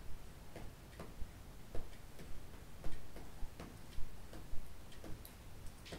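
Light, irregularly spaced clicks, roughly two a second, from a clear plastic letter board being held and moved by hand.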